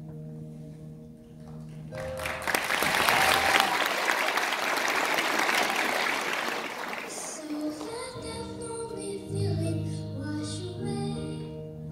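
Instrumental accompaniment with held notes, broken by audience applause lasting about five seconds, starting about two seconds in. The accompaniment then carries on, with a girl's solo voice singing over it.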